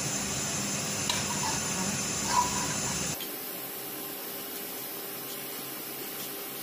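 Steady hiss with a few faint clicks of a metal potato ricer being squeezed, the loudest a short ringing click a little over two seconds in. The hiss drops and thins abruptly about three seconds in.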